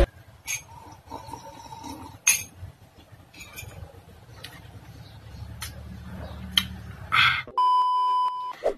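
A few faint clinks and taps, then near the end about a second of a steady, high test-tone beep of the kind played over TV colour bars, which cuts off abruptly.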